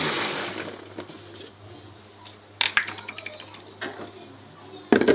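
Electric blender motor spinning down and fading out after being switched off, followed by a run of light clicks and clinks about two and a half seconds in and a louder knock near the end, as the blender jar and lid are handled.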